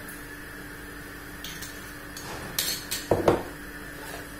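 Kitchen containers and utensils being handled on a counter: a few short knocks and clinks, the loudest pair about three seconds in.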